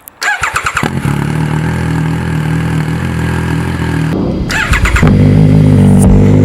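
Triumph Street Triple RS three-cylinder engine with a modified exhaust being started: a short whir of the electric starter, then the engine catches and settles into a steady idle. Just past four seconds the starter whirs again and the engine then idles louder.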